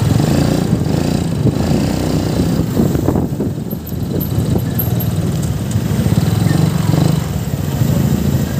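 Motorcycle engine running while riding, a steady low drone, with wind rushing over the microphone.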